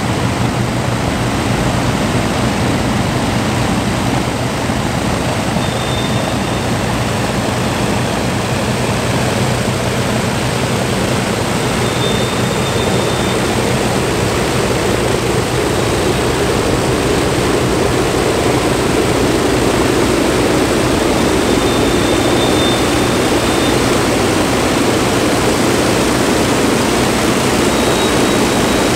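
The four Rolls-Royce Merlin V12 engines of an Avro Lancaster bomber running together as it taxis in, a loud steady drone that grows a little louder in the second half as the aircraft draws close.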